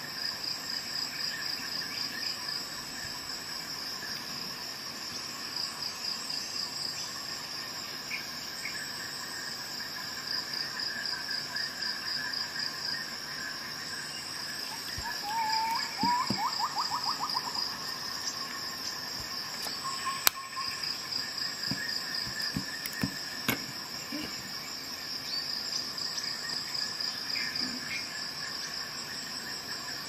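Crickets chirping steadily in the background, a fast pulsing trill. A few sharp clicks come in the second half.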